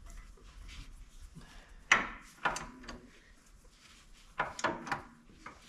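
A handful of separate sharp knocks and clacks from hand tools being handled on the tractor's front steering assembly, the loudest about two seconds in.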